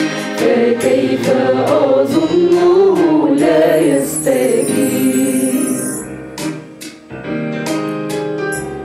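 Mixed choir of men's and women's voices singing an Arabic Christian hymn. The singing dies away about six seconds in, and quieter instrumental music carries on.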